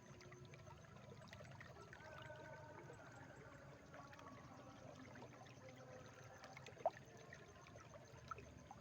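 Water flowing faintly through a rice paddy, trickling and gurgling, with a sharp click about seven seconds in.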